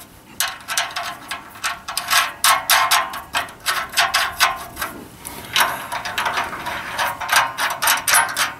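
Ratchet wrench clicking in quick bursts with short pauses, tightening the nuts of a U-bolt exhaust clamp on a muffler-to-tailpipe joint.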